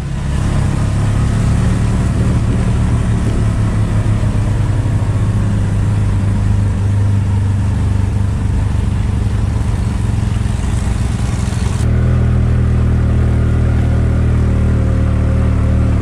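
Three-wheeler (auto-rickshaw) engine running steadily while riding in it, with the engine note changing about twelve seconds in.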